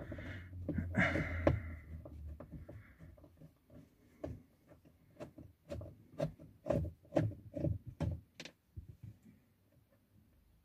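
Irregular sharp clicks and knocks of a screwdriver working a screw out of a car's plastic steering-column cover, after low rustling in the first couple of seconds.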